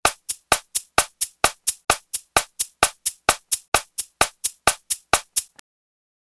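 Metronome clicking at the exercise's original tempo, a steady run of sharp clicks about four a second that stops about five and a half seconds in.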